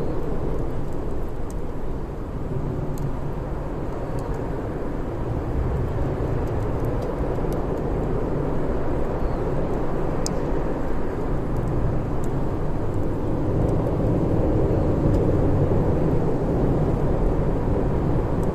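Wood fire burning: a steady low rushing noise with scattered small crackles and pops, one sharper pop about ten seconds in.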